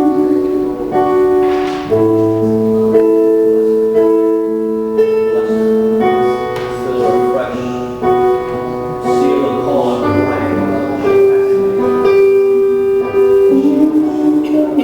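Slow keyboard music: sustained chords and held notes that change every second or two.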